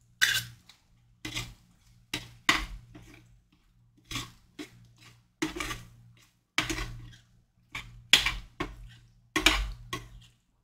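Metal spoon clinking and scraping against a stainless steel skillet and measuring cup while stirring cooked lentils with cheese sauce, in short, irregular strokes with brief pauses.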